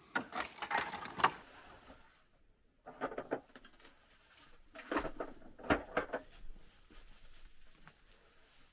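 Hay and old wood being handled while a barn attic is cleared: three bursts of rustling and clattering knocks, near the start, about three seconds in and around five to six seconds in.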